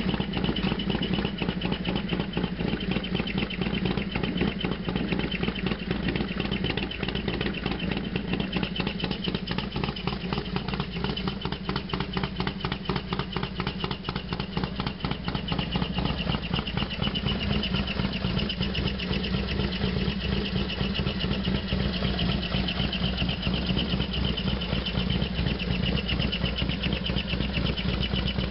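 Harley-Davidson FXDX Dyna's V-twin engine idling steadily on a cold start, its firing pulses running evenly throughout.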